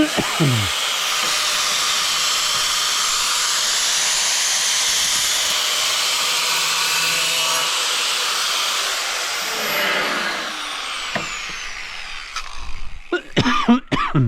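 Angle grinder running steadily as it lightly grinds along the edge of a large tile. About nine and a half seconds in it is switched off and winds down with a falling whine. A few knocks and clatter follow near the end.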